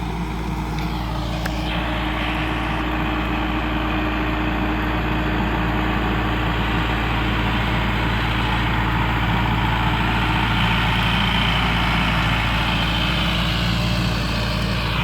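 Tractor engine running steadily at a constant speed, with a slight rise in loudness over the first few seconds.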